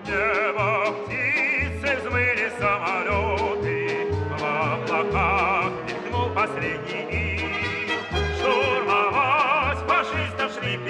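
Background music: a melody with strong vibrato over a steady, repeating bass line.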